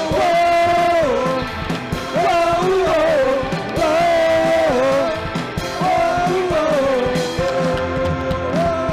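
Live rockabilly band playing: a voice holds long notes that slide down at their ends, over drums and upright bass.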